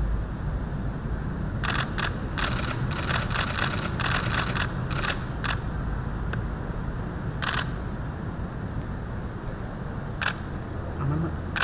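Camera shutters clicking in rapid bursts through the first half, then a few single clicks near the end, over a steady low room hum.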